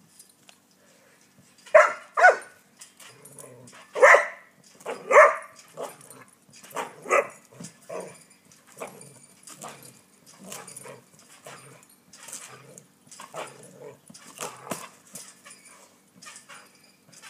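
Border collie barking repeatedly in short, sharp barks, loudest in the first seven seconds, then keeps on with quieter barks and yips.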